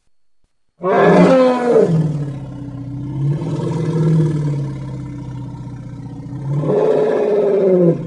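African bush elephant giving one long, loud, low call: it starts about a second in with a falling cry, drones low for several seconds, then rises and swells again near the end before stopping abruptly.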